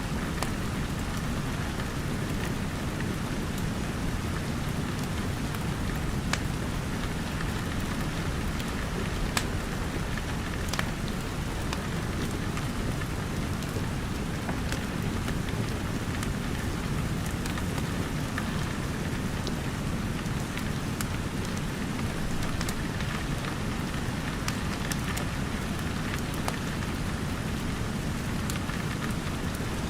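Steady rain, with scattered sharp crackles and pops from a wood fire.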